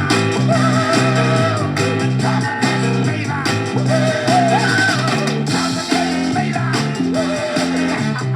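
Rock band playing a soul-style instrumental: a repeating bass-and-guitar riff with a wavering lead line above it.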